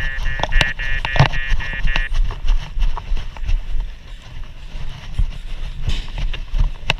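Fire engine's motor running in a low rumble, with scattered knocks and clatter. A rapid pulsing electronic beep sounds over it for the first two seconds and then cuts off.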